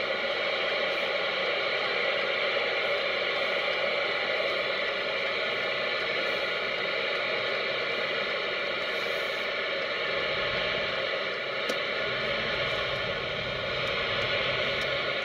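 Steady in-cabin road noise of a car moving slowly in heavy highway traffic, an even hiss, with a low rumble growing stronger about ten seconds in.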